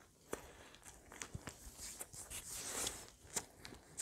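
Faint, close-miked wet mouth sounds of eating: scattered clicks and lip smacks from chewing and licking fingers, busiest around three seconds in.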